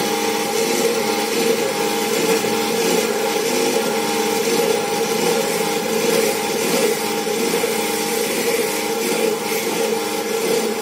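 Pillar drill running steadily, its bit drilling into a Fiat 480 tractor brake shoe.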